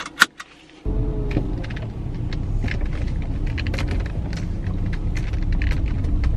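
Car engine started, heard from inside the cabin: a sharp click, then about a second in the engine catches with a brief falling whine and settles into a steady low running sound, with scattered light clicks over it.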